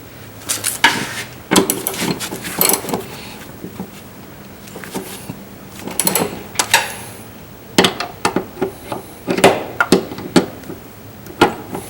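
Irregular clinks and knocks of hand tools and metal parts being handled, about a dozen short, sharp strikes with short gaps between them.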